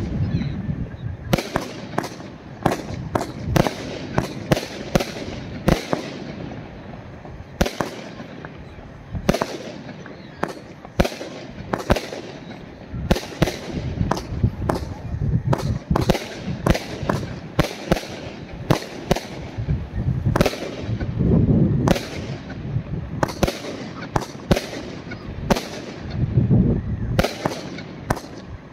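A 36-shot, 25 mm Funke Fiori 'Argento Feuerwerk' firework cake firing: a steady run of sharp launch and burst reports, roughly one or two a second, over a continuous rumble.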